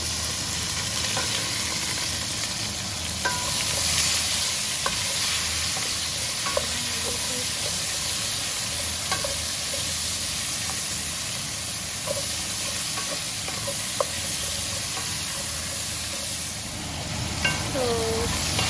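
Chopped onion, celery and carrot sizzling in a stainless steel pot while being stirred with a wooden spoon, with scattered knocks of the spoon against the pot.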